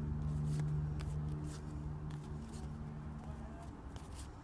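Football trading cards being handled and flipped through by hand, with soft card rustles and light clicks, over a steady low hum that fades away about three seconds in.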